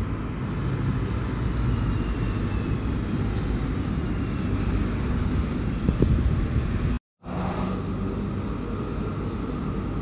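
Train running past with a steady low rumble. The sound cuts out for a moment about seven seconds in, then the rumble resumes.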